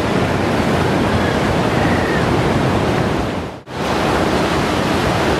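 Sea surf breaking and washing over shoreline rocks, a steady loud rush. It drops out for an instant about three and a half seconds in, then goes on.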